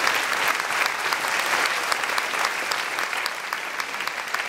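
Audience applauding, a dense steady clapping that eases off slightly over the last second or so.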